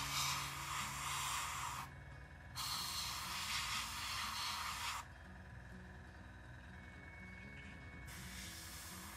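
Airbrush spraying paint, three bursts of hiss a second or two long, cut off between bursts as the trigger is released.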